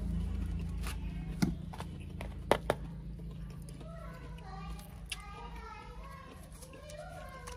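Metal spoon knocking and scraping against a young coconut's shell while scooping out the soft flesh, with a few sharp clicks in the first half. People talk in the background from about halfway.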